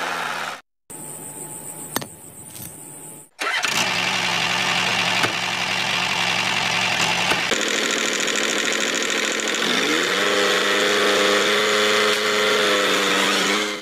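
An engine running, broken by a short dropout and a quieter stretch in the first few seconds. It then runs steadily again, and its pitch rises about ten seconds in.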